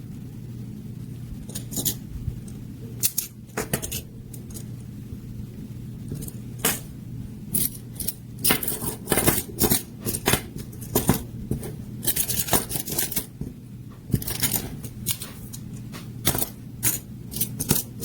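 Magnetic plastic building cubes being handled and snapped together: irregular sharp clicks and clacks, sparse at first and coming thick and fast in the second half, over a steady low hum.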